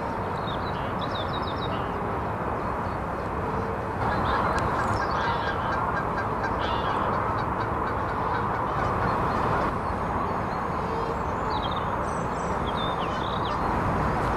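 Eurasian coots calling, short sharp honking notes at irregular intervals over a steady hiss.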